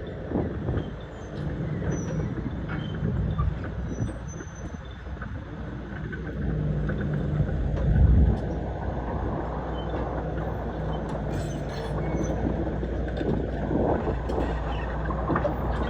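Heavy construction machinery engine running, with a loud low surge about eight seconds in.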